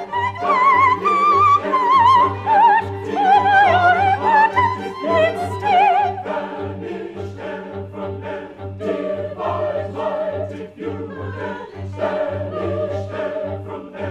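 Operatic music: a high voice sings with wide vibrato over an orchestral accompaniment, giving way about six seconds in to a fuller, choppier ensemble texture. A low note pulses steadily underneath, two to three times a second.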